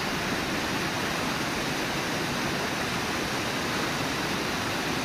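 Steady rushing of water pouring over Brooks Falls, a wide, even noise with no break or change.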